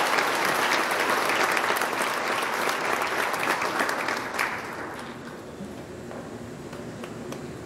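Audience applauding. The clapping dies away about five seconds in, leaving only low room noise.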